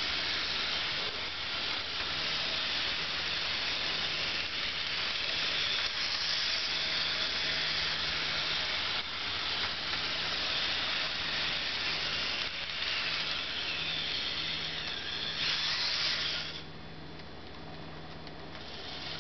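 Bachmann HO scale model train running in reverse around its track: the locomotive's small electric motor whirs, with a steady hiss from the wheels on the rails. It gets noticeably quieter near the end.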